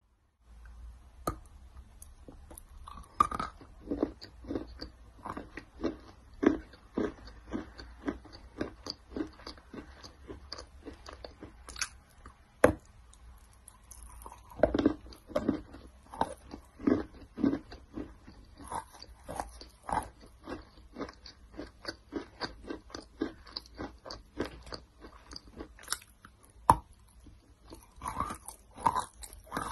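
Close-up biting and chewing of a lump of clay: irregular crunching as pieces break off and are chewed, with a few loud sharp cracks.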